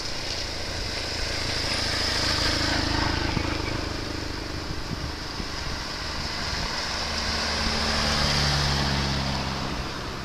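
A motorcycle rides past close by, then a car drives slowly past, engines running with tyre noise on the damp lane. The car's steady engine hum swells to its loudest about eight seconds in, then fades.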